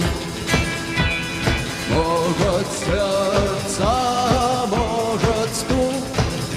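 Rock band music with a steady drum beat about twice a second under a sustained, gliding melodic line.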